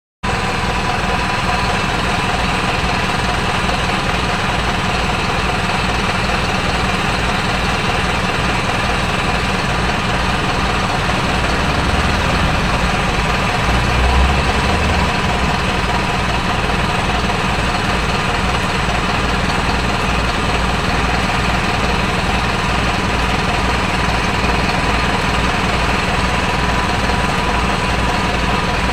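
A machine engine running steadily with a fast, even low pulsing, briefly a little louder about halfway through.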